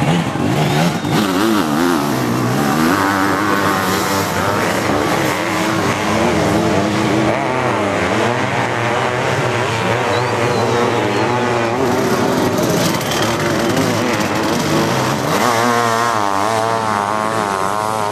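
Sidecar motocross outfits' engines racing. Several machines overlap, and their pitch keeps rising and falling as the throttles open and close. From about three-quarters of the way through, one engine is louder, its revs wavering quickly up and down.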